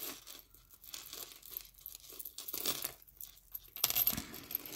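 Costume jewelry being handled by hand: a pink faux pearl necklace and other pieces clicking and clinking, with light rustling, in scattered short clicks that are loudest about four seconds in.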